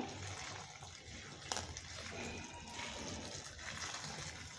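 Hot water pouring in a steady thin stream from a vacuum flask onto dried omena (small fish) in a bowl, with one short click about a second and a half in.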